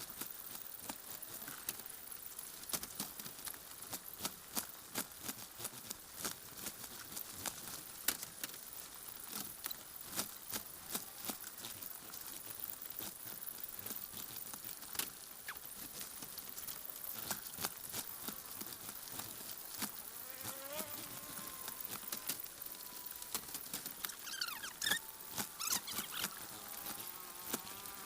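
Many quick taps and scratches from young chickens moving and pecking in their shipping box, with a few high chirping calls near the end.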